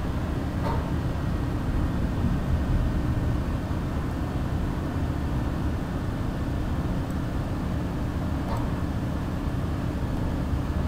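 A steady low background rumble, with two faint clicks, one about a second in and one about eight and a half seconds in.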